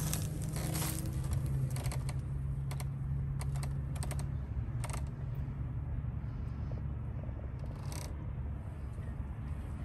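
Footsteps on dry grass and mulch, an irregular string of small crackling clicks that thins out after about five seconds, over a steady low hum.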